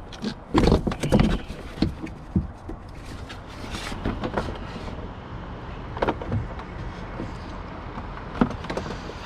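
Irregular plastic clicks and knocks from a car door panel being handled while its push-pin electrical connectors are unplugged, with a cluster of louder knocks in the first second and a half and single clicks after.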